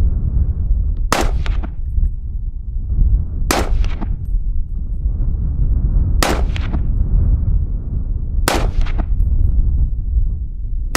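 Four rifle shots, one every two to three seconds, each a sharp crack with a short echo trailing after it. Heavy wind buffets the microphone underneath as a constant low rumble.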